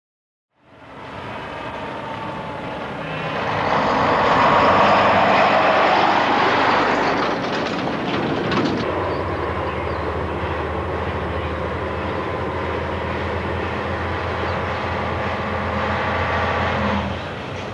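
Diesel engine and tyre noise of a livestock truck passing close by, loudest a few seconds in. After a break about nine seconds in, another lorry's diesel engine runs steadily as it approaches.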